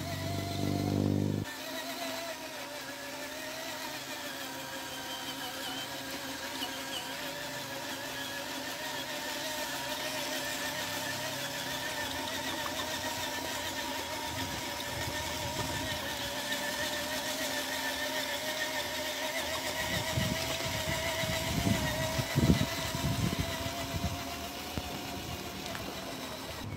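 Radio-controlled model semi-truck's electric motor and gearbox whining steadily as it pulls a loaded dump trailer, the pitch wavering slightly. A few low knocks and rumbles come near the end.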